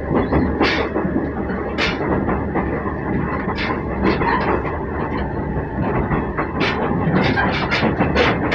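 Noto Railway NT300 diesel railcar running along the line, heard from inside the passenger cabin. There is a steady rumble of engine and wheels, with sharp clicks of the wheels over the rails, several in quick succession near the end.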